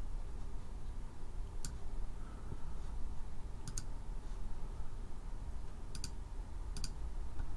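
Computer mouse buttons clicking four times, three of them as quick double ticks, over a steady low hum.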